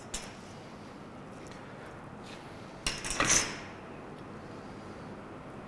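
Brief scraping, rustling handling noise about three seconds in, as the pendulum's clamp and thread are adjusted by hand, with a faint click near the start over quiet room tone.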